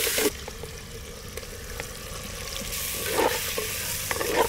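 Food sizzling as it fries in a clay pot over a wood fire, with a wooden spatula stirring and knocking against the pot. The sizzle is loud at the very start, drops suddenly, then swells again from about halfway.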